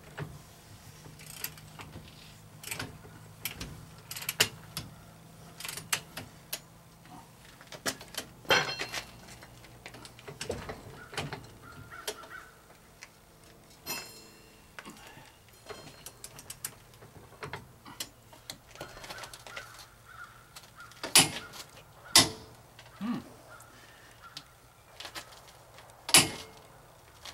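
Scattered sharp clicks and metallic knocks as a click-type torque wrench and socket are worked on a 1970 VW's rear axle nut, tightening it toward 220 ft-lb. The loudest clicks come a few seconds before the end.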